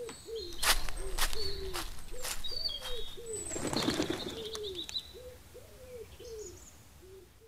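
Outdoor birdsong: a run of short, low, arched calls repeating two or three times a second, with high chirps and sharp clicks above them and a brief rushing noise in the middle. It fades out toward the end.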